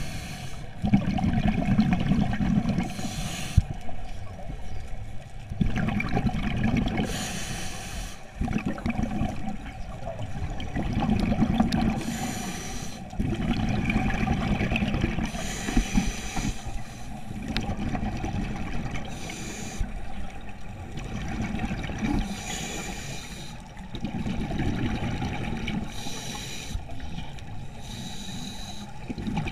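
Scuba diver breathing through a regulator underwater: a short hissing inhale, then a longer rumble of exhaled bubbles, repeating about every four seconds.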